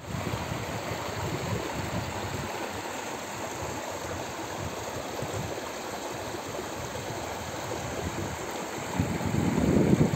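Shallow mountain creek rushing and splashing over rocks and stones, a steady wash of water that grows louder near the end.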